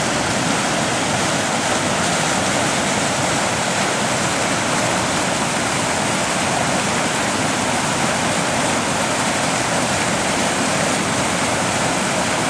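Floodwater from an overflowing pond rushing across and under a road: a loud, steady rush of fast-moving water.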